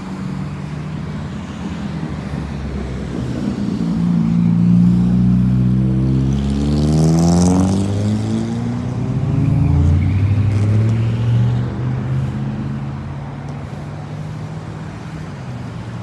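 Road traffic: motor vehicles driving past close by. Their engine hum and tyre noise swell from about four seconds in, peak near the middle as a vehicle goes by with its engine note shifting in pitch, and fade again after about eleven seconds.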